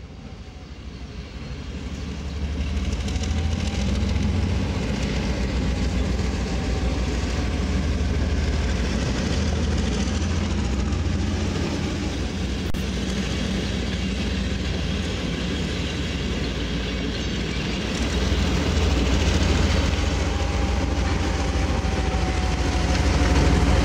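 Soviet-built M62 diesel locomotive's two-stroke V12 diesel engine working as it hauls passenger coaches past, a deep steady rumble with the rolling noise of the wheels on the rails. It grows louder over the first few seconds.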